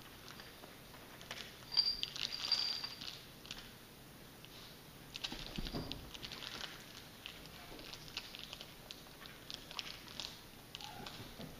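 A cat wrestling with a fabric toy on a tile floor: irregular rustling and light scratchy clicks from the toy and claws, in two busier spells. The loudest moment, about two seconds in, is a sharp click with a short high squeak.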